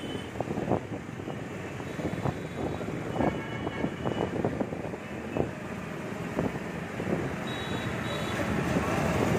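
Road and engine noise from riding a scooter in busy city traffic, with wind buffeting the microphone.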